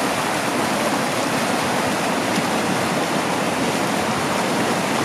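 River water rushing over rocky rapids: a steady, even rush that does not change.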